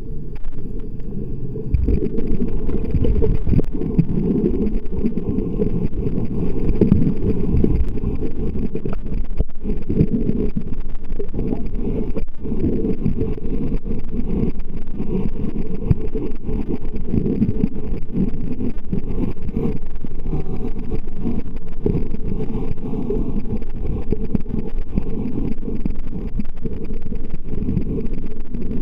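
Steady low rumble of underwater noise picked up by a submerged camera, with water moving against the housing and no clear animal calls.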